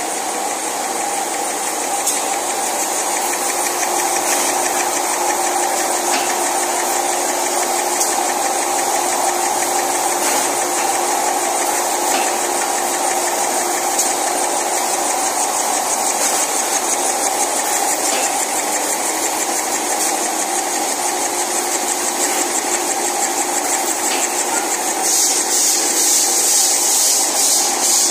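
Facial tissue production line machinery running: a steady mechanical hum under a fast, even clatter and a high hiss. Near the end the hiss grows louder and pulses.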